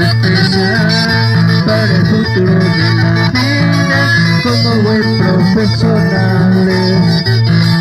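Loud music: guitar over a steady, repeating bass line.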